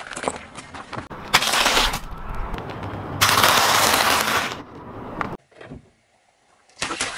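A car tyre rolling over small objects and crushing them on asphalt: sharp cracks of a plastic toy bicycle breaking, then a long loud crunching as crunchy snack sticks are crushed, followed by a near-silent pause and a few clicks near the end.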